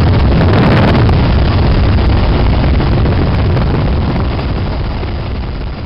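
UH-60L Black Hawk helicopter in low-level flight, heard from inside the cabin: a loud, steady drone of its turbine engines and rotor, with wind buffeting the microphone. The sound starts to fade near the end.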